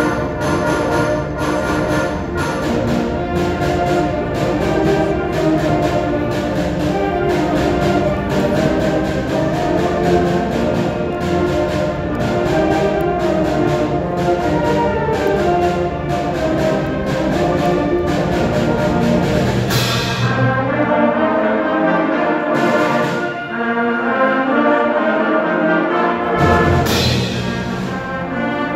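Concert band playing: brass and woodwinds over a steady percussion beat. About two-thirds of the way through the beat drops out, leaving sustained brass chords marked by a few single loud strikes.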